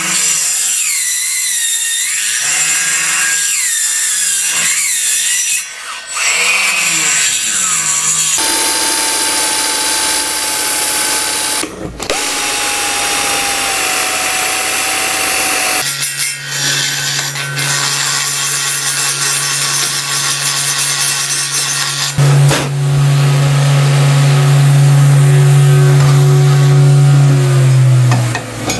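Handheld rotary grinder cutting auxiliary exhaust ports through the Nikasil-coated bore of a two-stroke Simson cylinder: a high whine that wavers in pitch as the cutter bites, stopping briefly and starting again several times, and running with a steadier, deeper hum in the second half before it stops near the end.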